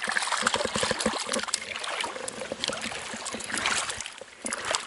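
A small grayling is landed on a spinning rod. Water splashes and there is a run of quick clicks and rustles as the fish is dragged out onto the sand, over the steady sound of running river water.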